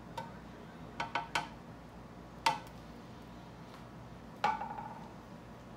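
Kitchenware being handled, a glass measuring cup and pots: a few light knocks, then two sharp clinks that ring briefly, about two seconds apart.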